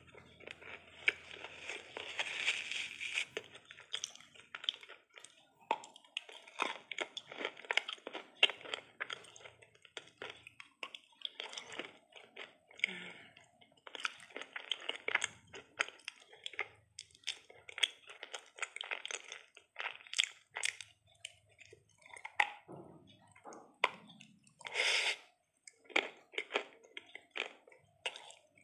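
Close-up chewing and crunching of hard chunks coated in chocolate spread: a run of short crackles and wet mouth sounds, with one louder burst about three-quarters of the way through.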